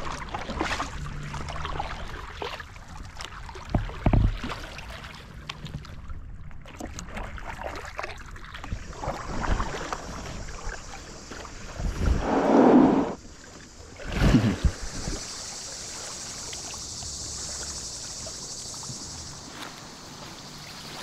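Kayak paddles dipping and splashing, with knocks against an inflatable kayak's hull and a louder burst of noise about twelve seconds in. After about fourteen seconds this gives way to a steady high hiss.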